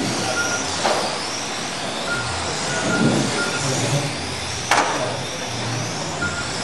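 1/12-scale stock-class electric RC cars racing on carpet: high motor whines rising and falling as the cars pass, with two sharp clacks, about one second and nearly five seconds in.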